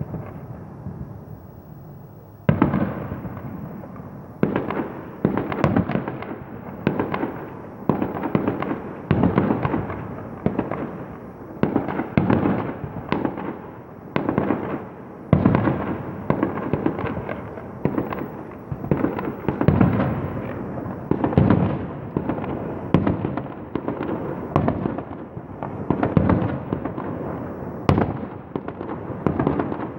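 Fireworks going off in a rapid run of bangs, roughly one or two a second, each with a rumbling tail. The run starts after a quieter couple of seconds.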